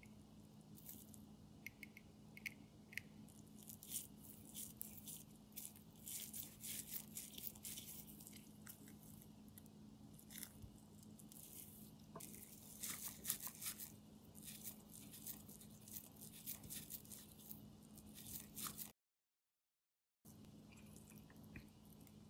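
Faint, scattered clicks and scrapes of a clone Horia jewelling tool worked by gloved hands, pushing a broken cap jewel out of its setting, over a low steady hum. The sound drops out completely for about a second near the end.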